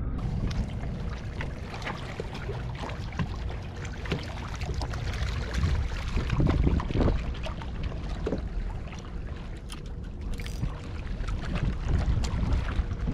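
Water lapping and splashing irregularly, with wind rumbling on the microphone.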